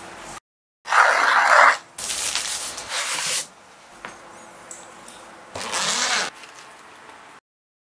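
Unboxing handling noises: the packaging rustles and scrapes in a few short bursts, then a zipper is pulled open on a hard-shell carry case in a quick run near the end.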